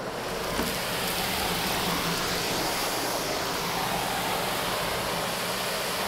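Vacuum cleaner running with a Wessel-Werk RD285 floor nozzle on the hose: a steady rush of suction air with a low hum underneath, building over the first half second and then holding even.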